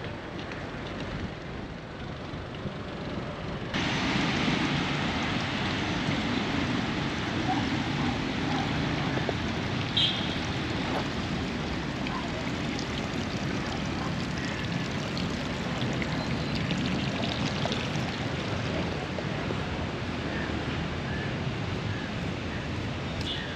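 Steady rush of flowing water, louder after a sudden change about four seconds in.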